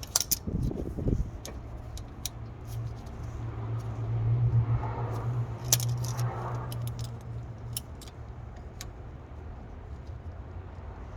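Scattered light metallic clicks and clinks of hand tools against car brake hardware, with a low steady hum underneath that is loudest between about four and six seconds in.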